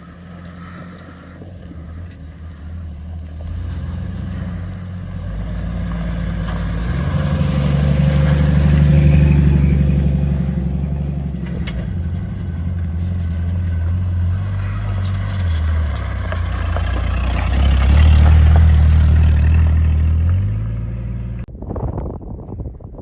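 Jeep engine running under load on a dirt trail, its pitch stepping up and down with throttle and loudest twice, about nine and eighteen seconds in. The sound cuts off suddenly near the end.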